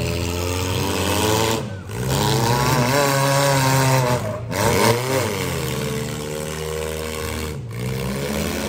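Several demolition derby cars' engines running and revving at once, their pitch rising and falling as the cars accelerate and push against each other.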